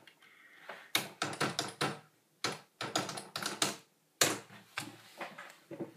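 Typing on a computer keyboard: quick runs of key clicks, in three bursts with short pauses between.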